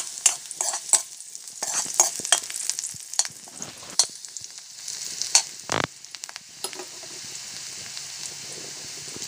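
Sliced onions sizzling in hot oil in a wok while a metal ladle stirs them, with repeated scrapes and knocks of metal on the pan. The stirring stops about two-thirds of the way through, leaving a steady, quieter sizzle.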